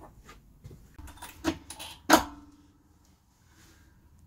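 A few metal clicks and clanks from bolts and tools being handled, the loudest about two seconds in with a short ring; after that it goes quiet.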